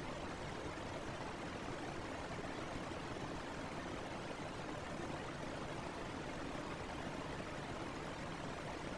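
Fan running steadily: an even rush of air with no change or rhythm.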